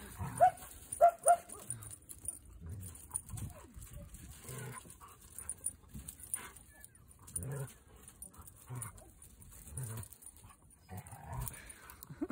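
Dog whimpering: three short, high, rising whines in quick succession about half a second to a second and a half in, followed by softer scattered sounds.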